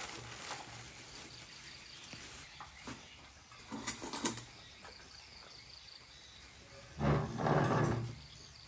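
Thin plastic bags crinkling and rustling as they are handled and shaken out, in a couple of brief crackles and then a louder burst of rustling about seven seconds in.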